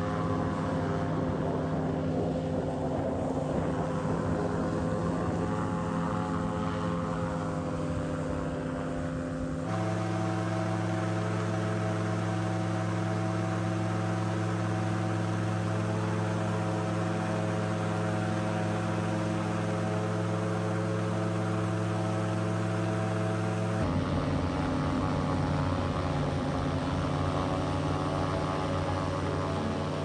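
Airboat's engine and air propeller running at a steady drone. The pitch wavers slightly at first. The sound then changes abruptly twice, about ten seconds in and again near twenty-four seconds, holding a steadier, deeper tone in between.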